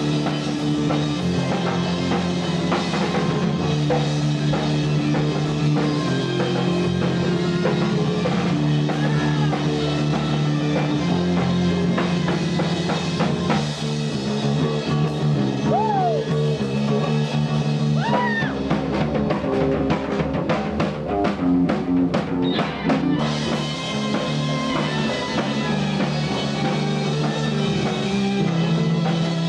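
Rock music played on drum kit, guitar and bass, with a choppy stop-start stretch past the middle.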